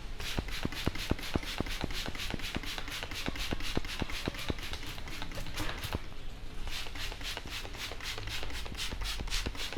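A barber's hands tapping a head in quick, even strokes as massage percussion, about five strokes a second, with a brief break about six seconds in.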